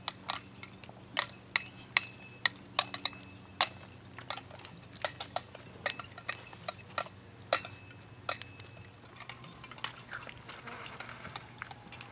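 Metal horse tack clinking and jingling, sharp light clinks with a short ring, irregularly about one or two a second, as the saddled horse walks on the long lines. A faint steady low hum sits underneath.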